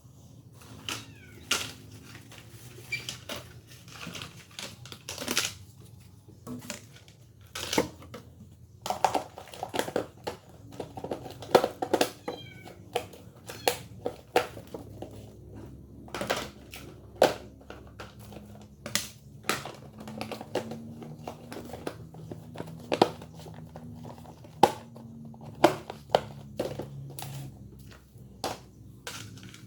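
A domestic cat giving a few short meows amid many sharp clicks and knocks, over a faint low steady hum.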